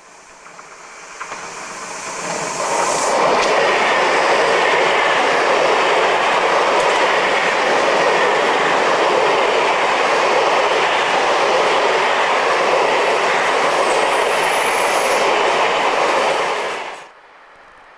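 SBB EW IV push-pull passenger train running past close by on curved track. Its noise builds as it approaches, then holds loud and steady as the coaches pass, with a brief high squeal near the end. The sound cuts off suddenly.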